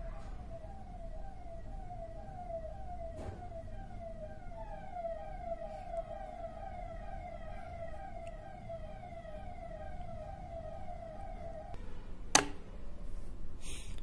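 Emergency-vehicle siren in a fast yelp, a short rising wail repeating about three times a second. It cuts off about twelve seconds in, and a sharp click follows.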